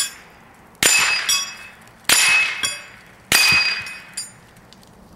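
Three .22 rifle hits from a custom Ruger 10/22 on steel silhouette targets, about a second and a quarter apart. Each is a sharp crack with a bright metallic ring that fades within about a second, and a lighter knock follows each about half a second later as the plates are knocked down.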